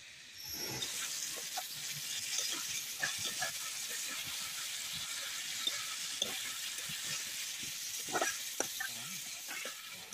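Thick spiced gravy with green tomato pieces sizzling in a metal kadai, with a steady hiss that starts about a second in. A spatula stirs it, scraping and clicking against the pan.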